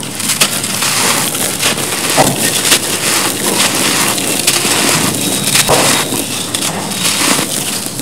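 Hands crushing a soft, gritty cement block: dense crackling crunches as it crumbles, with loose grit pouring and sifting through the fingers.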